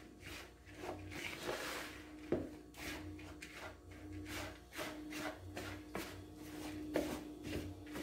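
Spoon stirring annatto seeds and wheat flour in a plastic bowl: repeated gritty scraping strokes, with a few sharper knocks of the spoon against the bowl.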